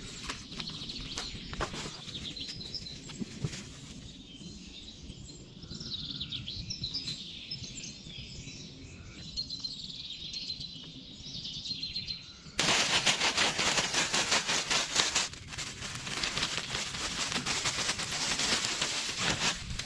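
Small birds chirping, with scattered light clicks. About twelve seconds in, the sound cuts suddenly to a louder, dense crackling hiss.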